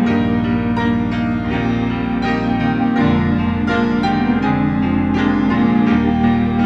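Organ and piano playing together. Long held low organ notes change about every three seconds under struck piano notes.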